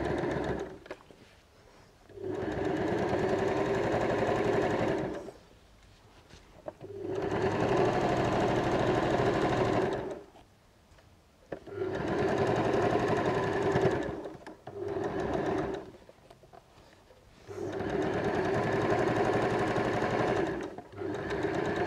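Janome electric sewing machine top-stitching a seam, running in about five stretches of two to four seconds with pauses of a second or two between them as the fabric is guided.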